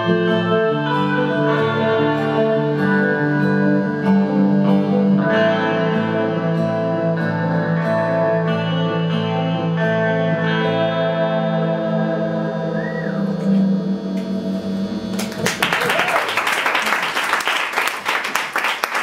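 A live band's instrumental close of a song: plucked strings over long held notes, ending about fifteen seconds in. Audience applause and clapping follow.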